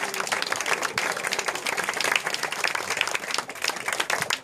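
A crowd of guests applauding, many hands clapping steadily together after a toast.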